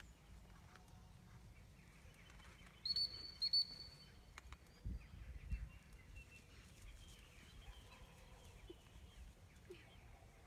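Two short, high whistled notes, steady in pitch, about half a second apart, over faint outdoor background with scattered distant bird chirps.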